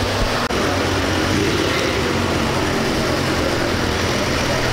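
A motor vehicle engine idling steadily, a low hum under a constant hiss.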